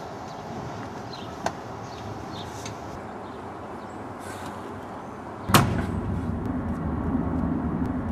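A Nissan Maxima's trunk lid slams shut with one sharp bang about five and a half seconds in, after a light knock earlier on. The car's steady running drone then follows, as heard from inside the cabin while driving.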